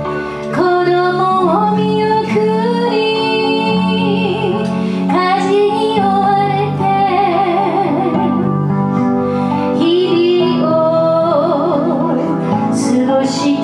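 A singer's voice over acoustic guitar and a Korg keyboard, playing a song live; the sung line holds long notes with vibrato.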